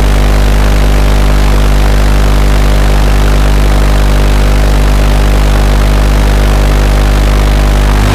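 Flyxcopter Mini Evo quadcopter's Sunnysky 1306 brushless motors idling steadily while it sits on the ground, under a loud hiss, starting to change as it throttles up at the very end.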